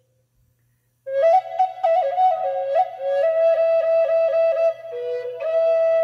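Wooden Native American-style flute playing a slow melody. It enters after about a second of silence, with quick grace-note flicks between longer held notes.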